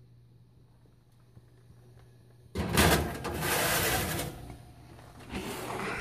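A metal baking sheet scraping loudly as it slides onto an oven's wire rack, starting suddenly about two and a half seconds in and lasting more than a second. More metal clatter follows near the end as the oven door is shut.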